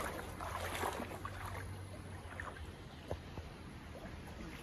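Water sloshing and splashing as hands work in a shallow stream. There are small splashes in the first second or so, then lighter trickling.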